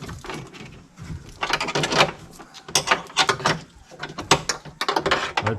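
Wrench on a 10 mm window-regulator bolt inside a car door, with irregular metal clicks, clinks and rattles in several clusters as the bolt is worked loose.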